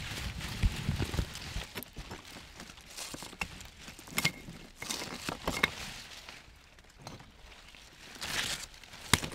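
Leather boots stepping over rough lava stones among grapevines: irregular scuffs and sharp knocks, with vine leaves rustling in between.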